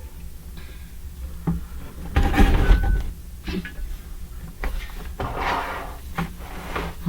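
Plastic model kit parts being handled and pressed together: scattered sharp clicks and knocks, with a louder rustling bump about two seconds in.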